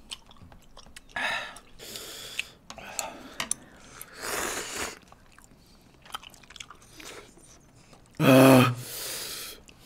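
Spicy buldak noodles slurped and chewed in a few short bursts. About eight seconds in comes a loud vocal groan, then a long breathy exhale.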